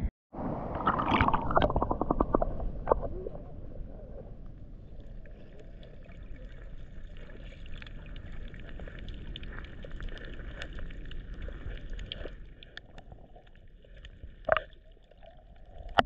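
Camera dipped underwater in a shallow tide pool: splashing and bubbling gurgle for the first few seconds, then a muffled underwater wash with scattered faint clicks and one sharper click near the end.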